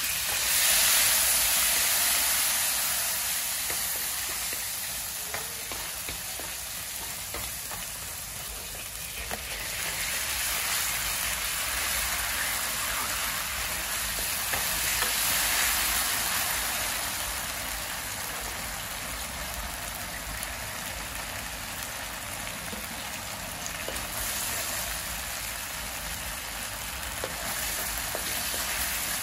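Minced garlic and spring onion sizzling in hot oil in a wok, with a wooden spatula stirring and scraping through it. The sizzle is loudest about a second in, as the oil hits the pan, and swells again around ten to fifteen seconds in.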